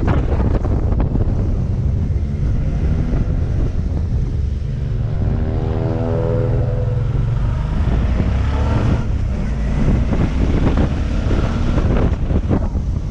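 Motorcycle engine running on a steep mountain climb, with wind buffeting the helmet microphone. Midway the buffeting eases and the engine note comes through clearly, bending in pitch as the bike rounds a hairpin, then the wind noise rises again near the end.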